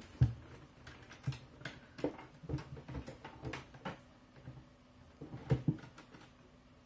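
Irregular small clicks and taps of laptop parts being handled: the thin metal screen mounting bracket knocking against the display lid as it is fitted. The sharpest knocks come about a quarter second in and twice around five and a half seconds in.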